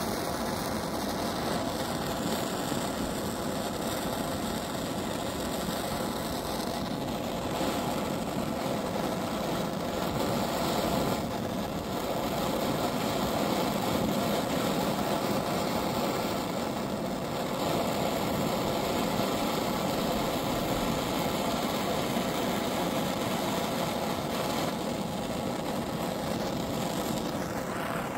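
Handheld propane torch burning with a steady hiss, its flame heating a chainsaw exhaust deflector to burn carbon out of it.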